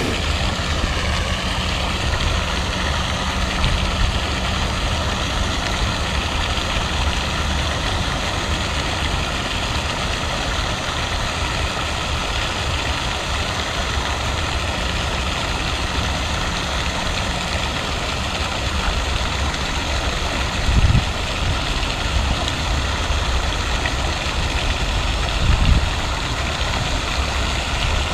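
Steady outdoor noise of a pond fountain's spraying water, with wind rumbling on the microphone and a faint steady whine over it. Two short low thumps come in the last third.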